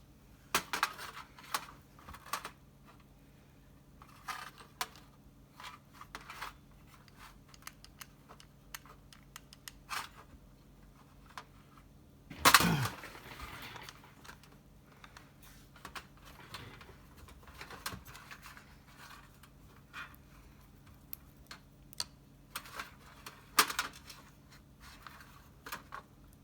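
Small metal parts of a car distributor being handled and clinked together, with scattered clicks and taps and one louder clunk about halfway through, over a faint steady low hum.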